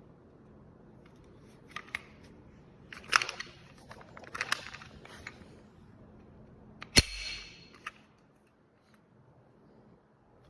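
Airsoft gun being handled: a few clicks and rattles of plastic parts, then one sharp crack about seven seconds in, trailed by a brief hiss.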